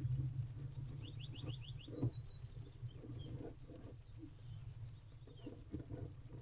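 Soft scuffling and knocks of barn owls shifting about on the floor of a wooden nest box, over a steady low hum. About a second in, a quick high trill of six short chirps and a brief high note from a bird.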